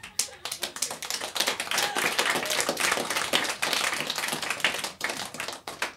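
A small audience clapping, dense irregular claps that thin out and fade near the end.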